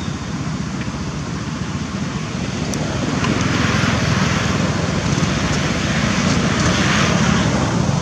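Steady outdoor background noise: a low rumble with a hiss that grows louder about three seconds in and swells twice.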